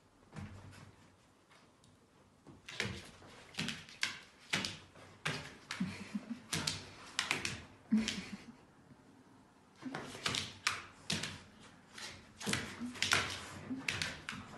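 A corgi's paws landing on the floor as it hops and jumps again and again: a run of quick knocks, about two to three a second, with a short pause partway through.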